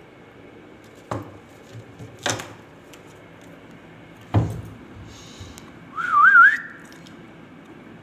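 A few scattered knocks and taps, then, about two seconds before the end, one short warbling whistle that wavers as it rises in pitch.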